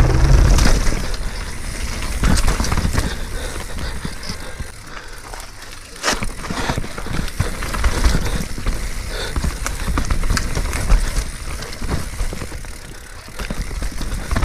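Mountain bike descending a rough technical downhill trail: tyres on dirt and rock, with irregular knocks and rattles from the bike over bumps and heavy rumble on the microphone. It grows quieter twice, briefly.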